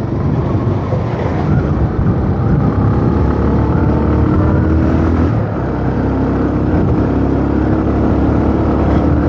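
Motorcycle engine running at road speed, heard from the rider's seat with wind noise on the microphone; the steady engine note breaks briefly about five and a half seconds in, then holds again.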